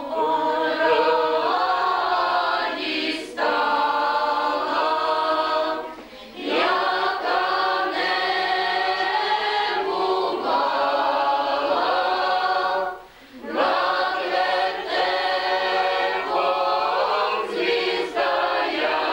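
A group of people singing a Ukrainian Christmas carol (koliadka) together, in long held phrases with short pauses for breath between lines.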